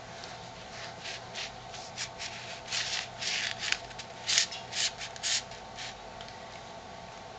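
Paper rustling and scraping as it is handled, in a series of short scrapes that are loudest between about two and five and a half seconds in.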